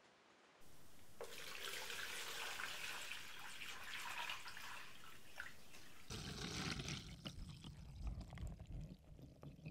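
Water poured from a metal bowl into a plastic tub, splashing onto a stainless steel flat bar to fill the tub as drilling coolant. About six seconds in the sound turns deeper, then thins to uneven splashes near the end.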